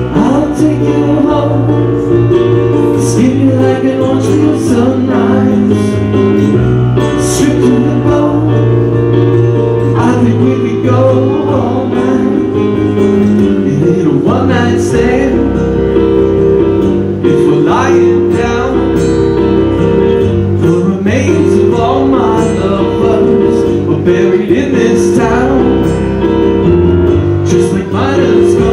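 Live acoustic band music: two acoustic guitars and a Korg Kronos keyboard, with a man singing over them.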